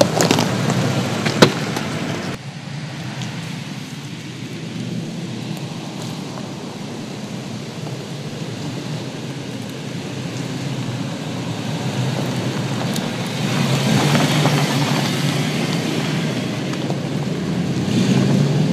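Toyota Land Cruiser driving off-road: its engine running under tyre crunch and gravel noise over rock and dirt, with a sharp knock about a second and a half in. The engine and tyre noise swell louder twice in the second half.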